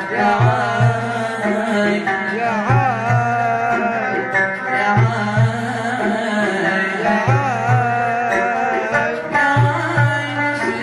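Music: a singer's ornamented, winding vocal line over a steady hand-drum beat.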